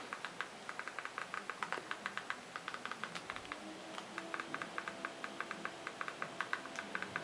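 Faint, rapid clicking of control buttons pressed over and over, a few presses a second in uneven runs: repeated down presses trying to move the on-screen selection to a Record button it won't reach.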